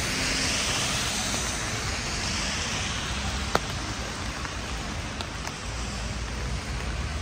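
Steady rain with the hiss of car tyres on a wet street; one car's tyre hiss fades over the first two seconds. A single sharp tick comes about three and a half seconds in.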